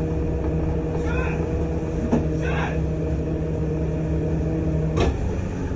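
Tow truck engine and hydraulic wheel-lift pump running with a steady hum as the lift raises the rear of a car. About five seconds in a sharp clunk, and part of the hum stops.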